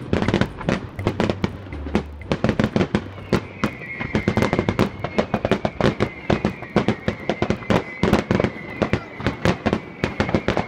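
Fireworks display: a rapid, dense string of bangs and crackles from shells bursting in the air. A thin, steady high tone runs along with them from about three seconds in.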